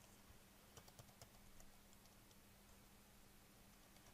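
A handful of faint computer keyboard keystrokes as a password is typed, mostly in the first half, over a faint steady low hum.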